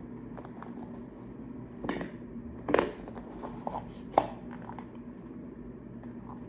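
Hands opening a cardboard product box: scattered rustles, scrapes and sharp clicks of cardboard and paper packaging, a few seconds apart, over a steady low hum.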